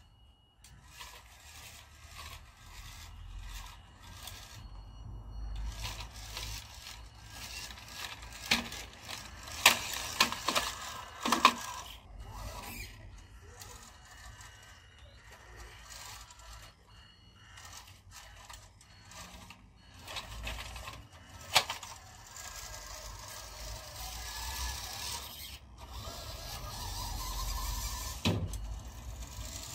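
A 1/16-scale WPL B-1 RC military truck's small electric motor and gears running as it crawls over brick paving, with its tyres scraping on the bricks. A cluster of sharp knocks comes about a third of the way in, and another single knock about two-thirds through, as it bumps over the bricks.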